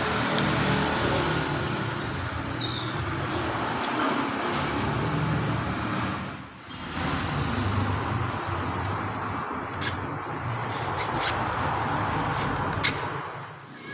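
Motor vehicle engines running, the sound swelling, dropping away briefly about halfway through, then swelling again, with a few light clicks near the end.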